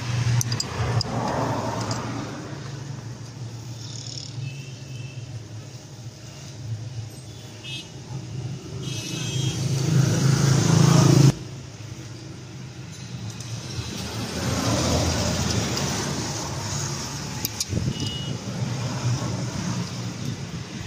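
Cummins 6BT straight-six diesel being cranked on its starter without starting. The sound builds for several seconds and cuts off sharply about eleven seconds in, then a second, softer spell of cranking follows. This is hard starting after the injection pump ran dry of fuel.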